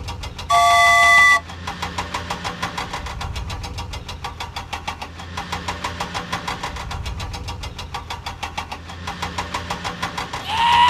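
Cartoon vehicle engine sound effect running steadily with a rapid, even knocking. A single loud honk about half a second in lasts about a second, and a rising tone begins near the end.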